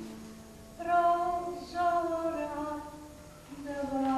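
A woman singing slow, long held notes in two phrases, one starting about a second in and another near the end.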